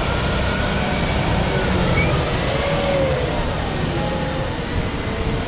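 Diesel engine of heavy farm machinery running steadily under load, a constant low drone with faint shifting whines above it.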